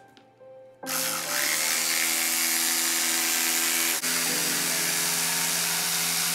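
Makita jigsaw sawing through particleboard: it starts about a second in and runs loud and steady with a buzzing tone, with a momentary dip near the middle.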